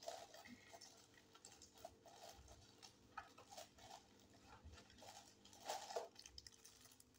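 Faint crinkling and crackling of plastic packaging being handled, with a louder cluster of crackles about six seconds in as the wrapped sound card is picked up.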